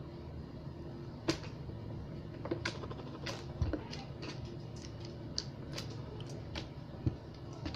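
Glitter slime being squeezed and worked in the hands, making irregular small clicks and pops as air pockets burst.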